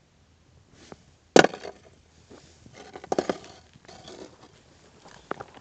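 Thin puddle ice being cracked and broken by hand: one sharp crack about a second and a half in, then two short spells of crackling and crunching as the sheet breaks up.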